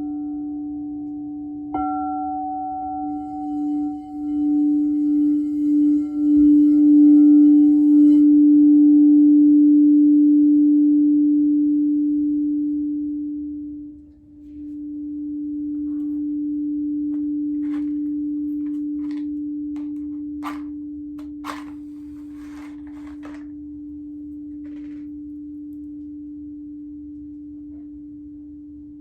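Singing bowl struck about two seconds in, ringing with one steady low tone and a few higher overtones. The ring swells louder and pulses for several seconds, dips briefly about halfway and rises again before slowly fading. A few faint clicks come in the second half.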